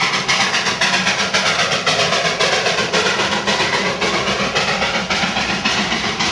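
Darjeeling Himalayan Railway B Class 0-4-0 saddle-tank steam locomotive working past, its exhaust chuffing in a fast, even beat. Its coaches roll by along the street track.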